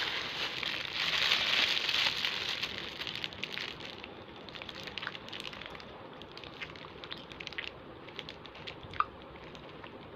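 Thin plastic bag crinkling as it is handled around a piece of fried chicken, loudest in the first three seconds and then in lighter, scattered crackles, with one sharp click about nine seconds in.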